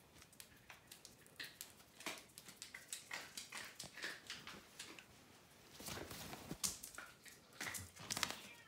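A dog's claws clicking and tapping irregularly on a hard floor as it walks about, faint, with a few louder taps about two-thirds of the way through and near the end.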